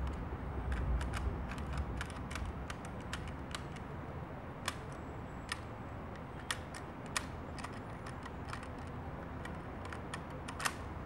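Irregular sharp mechanical clicks, a dozen or more, some in quick pairs, over a low outdoor rumble that is strongest in the first couple of seconds.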